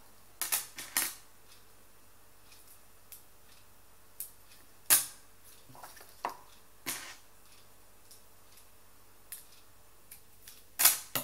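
Scattered sharp clicks and taps, with a louder cluster near the end: bead bracelets being put down on a tabletop and scissors snipping the ends of elastic bead cord.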